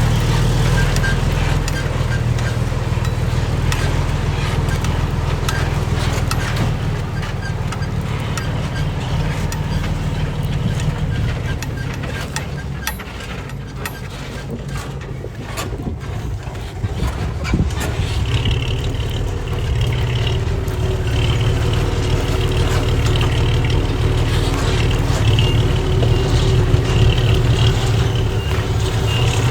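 Heavy diesel earthmoving machinery running steadily under load, easing off briefly about halfway through. A reversing alarm beeps over it in the last third.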